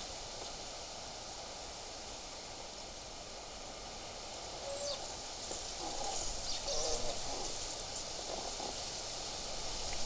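A dove cooing in a few low, soft notes, starting about halfway in, over steady wind noise and rustling leaves.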